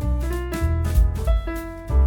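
Background music: piano or keyboard playing a moving melody over a bass line and a drum beat, in a light jazzy style.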